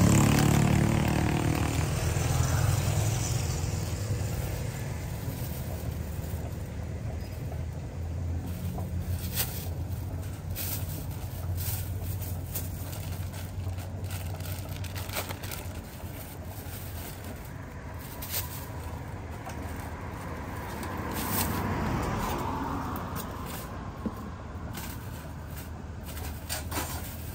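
Passing road traffic: a vehicle's low engine rumble, loud at the start and fading over the first few seconds, then another vehicle swelling past about 22 seconds in. Scattered light clicks and scrapes of plastic bags and cups being handled sit over it.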